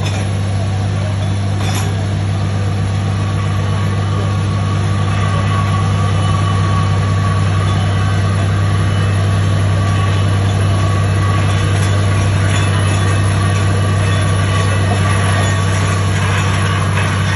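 DTHR-300 truck-mounted water-well drilling rig running steadily under load, its engine and air compressor making a deep, even drone while it drills. Near the end a hiss of water and air blowing out of the borehole joins in.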